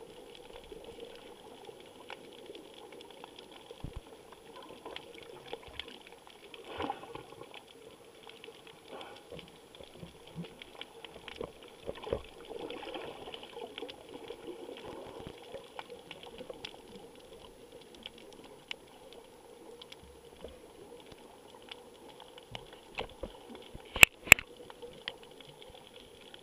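Underwater recording through a camera's sealed housing: a steady muffled hiss with many faint crackles. Near the end come two sharp, loud clicks about a third of a second apart: the Drift HD Ghost camera taking still images while it records.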